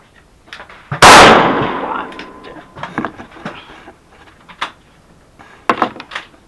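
A single shot from a CZ 457 American .22LR bolt-action rifle about a second in, ringing out for about a second, followed by a series of sharp metallic clicks.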